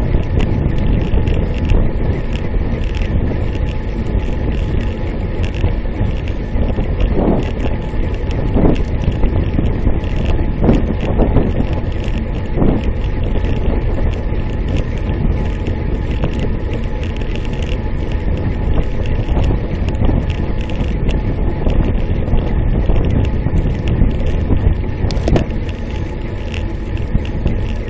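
Steady rushing and buffeting of wind on a handlebar-mounted camera's microphone on a road bicycle being ridden hard, with the rumble of tyres on asphalt beneath.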